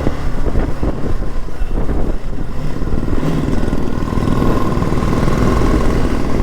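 BMW G 310 GS single-cylinder motorcycle engine running under way, with a steady engine note coming through more clearly in the second half.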